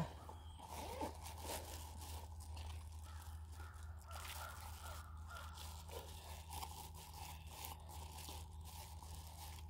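Hands working on freshly shot squirrels: irregular rustling, crackling and small tearing sounds over a steady low hum.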